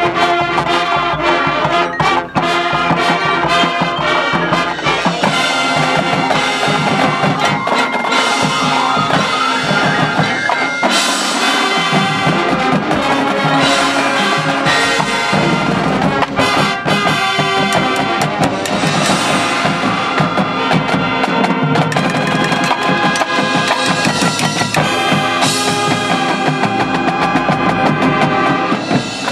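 Marching band playing loud at full ensemble: brass carrying the melody over drumline and mallet percussion. The sound drops off right at the end.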